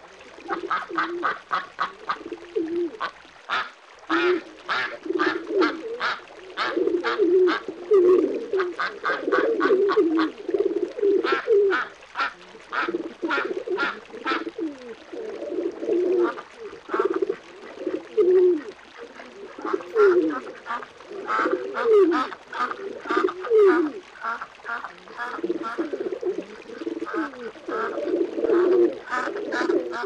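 Pigeons cooing continually, mixed with rapid runs of short calls from ducks quacking.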